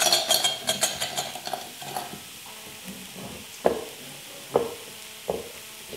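Stainless steel bowls clinking and knocking as they are handled, with a quick run of clinks at first and then three single ringing knocks about a second apart. Under them, minced chicken sizzles steadily in a frying pan.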